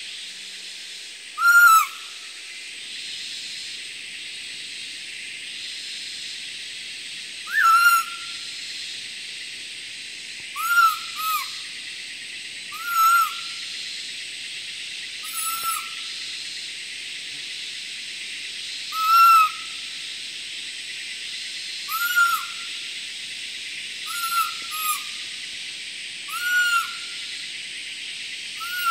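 Hand-blown barking deer (muntjac) call: short whistle-like notes that rise and fall, about ten of them, some doubled, every few seconds, imitating a barking deer to lure one in. A steady high hiss runs underneath.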